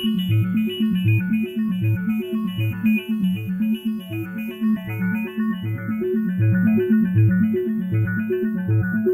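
Electronic music: a synthesizer playing a quick, even pulsing bass pattern, about three notes a second, under short repeating higher notes.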